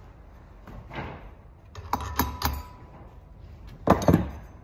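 Steel hammer tapping a 3/32 pin punch to drive a split roll pin out of a Ski-Doo QRS secondary clutch: a few light taps with a short metallic ring around two seconds in. Near the end comes a louder clatter as the hammer is set down on the workbench.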